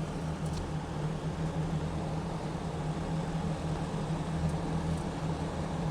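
The air-cooled flat-four engine of a 1969 Volkswagen Karmann Ghia idling steadily.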